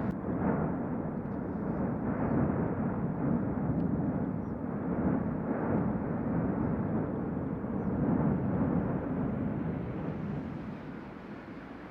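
Erupting volcano, the Cumbre Vieja on La Palma, giving off a continuous deep rumble that swells and eases every couple of seconds and drops away near the end.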